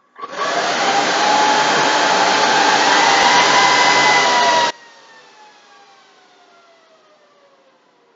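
Dell PowerEdge R900 server's cooling fans spinning up at power-on: a very loud rush of air with a high whine. It drops off suddenly about four and a half seconds in, leaving a faint whine that falls in pitch as the fans slow.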